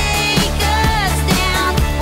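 Pop song playing: a sung melody over a steady beat, about two beats a second.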